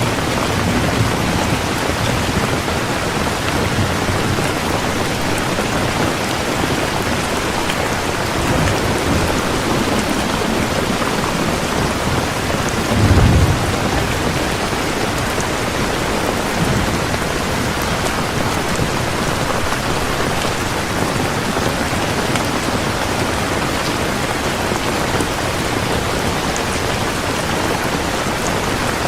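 Heavy rain falling steadily, with a short low rumble of thunder about halfway through.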